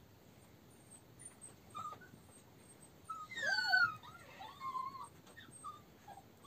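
Month-old toy terrier puppies squealing and yipping as they play-fight. A short call comes early, a louder run of high, wavering squeals about three seconds in, then a few shorter yips.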